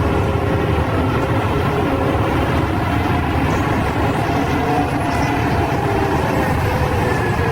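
A heavy vehicle's engine running steadily: a dense, even rumble with steady tones through it.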